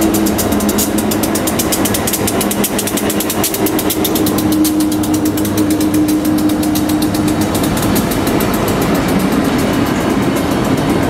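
Freight train passing close by: the last EMD diesel locomotives, a Buffalo & Pittsburgh SD60M and a Canadian National SD70M-2, run past with a steady engine hum over the rumble and rapid ticking of steel wheels on the rails. The engine hum fades about two-thirds of the way in, leaving tank cars rolling by.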